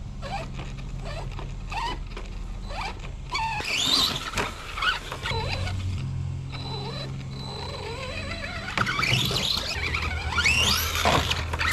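Electric motor and drivetrain of a 1/10-scale RC monster truck whining, rising and falling in pitch as the throttle is worked, loudest at about four seconds and again near the end.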